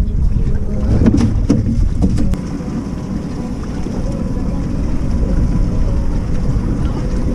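Wind buffeting the microphone on an open fishing boat, a steady low rumble. A few knocks come about a second in, and after a short drop in level a faint steady hum joins.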